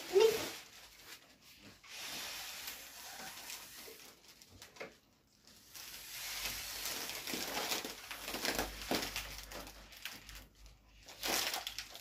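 Gold foil letter balloons crinkling and rustling as they are handled and pressed onto a wall, in uneven stretches with a short pause about five seconds in.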